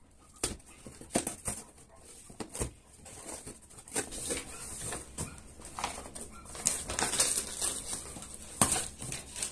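Cardboard shipping box being handled and opened: scattered knocks, scrapes and rustles of the cardboard and its flaps, with a sharper knock near the end.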